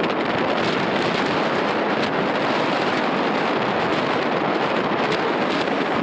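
Wind rushing over the microphone of a moving motorbike, a steady, even roar of noise mixed with road noise.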